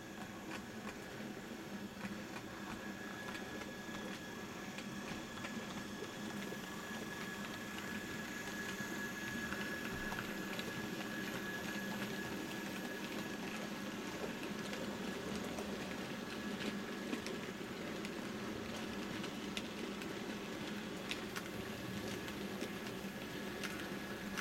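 00 gauge model train running along the track, its small electric motor humming with a steady whine and its wheels ticking over rail joints. It grows louder over the first few seconds as it nears, then holds steady.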